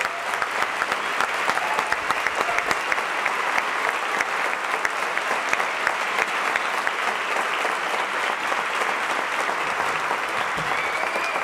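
A concert audience applauding steadily. For a few seconds in the middle the clapping falls into a regular beat of about three claps a second.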